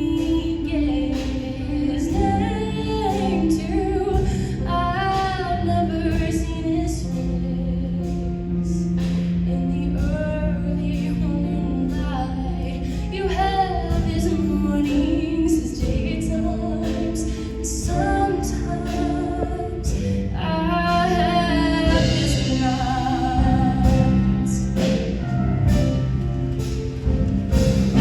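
Show choir singing, mostly female voices, with instrumental accompaniment of held bass notes and a steady drum beat.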